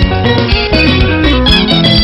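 Sungura band music: electric guitar lines over bass guitar and a steady drum beat.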